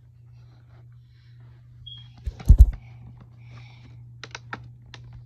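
Hard plastic clicking and tapping from a portable DVD player being handled, its lid and buttons worked, with a run of sharp clicks near the end. About halfway through come two heavy thumps close together, the loudest sounds.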